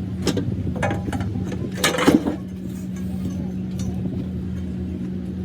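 A steady machine hum with several sharp knocks, the loudest cluster about two seconds in.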